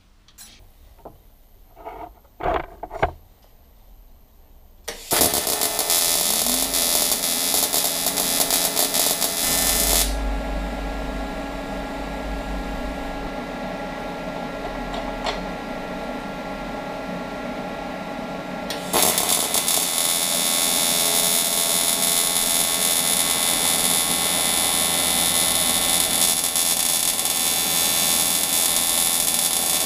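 AC TIG welding arc on cast aluminium, set to 80 Hz AC with 35% cleaning, buzzing steadily after a few light knocks in the first seconds. The arc starts about five seconds in, is quieter for several seconds in the middle, and comes up louder again about 19 seconds in.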